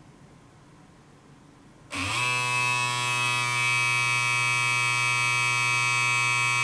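Braun Series 5 electric shaver buzzing as it runs in its cleaning station during the automatic cleaning cycle. It switches on abruptly about two seconds in, comes up to speed briefly, then holds a steady pitch.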